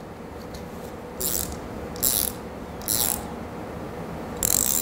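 Ratchet wrench clicking in four short bursts as an injection port is tightened into a hole drilled in concrete for polyurethane foam leveling.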